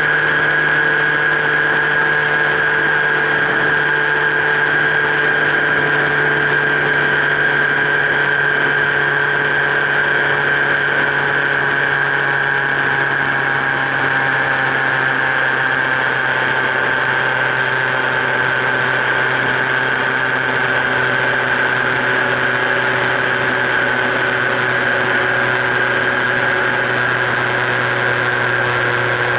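Motorcycle engine running at a steady highway cruise, picked up through a camera mounted on the bike's frame, over wind and road noise. Its pitch eases down slightly over the stretch.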